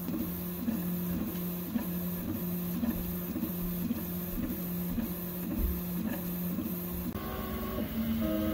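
Original Prusa i3 MK3 3D printer's stepper motors whining as the print head sweeps back and forth filling in a layer. The whine switches between two steady pitches about three times a second. A little after seven seconds it breaks into shorter moves at shifting pitches.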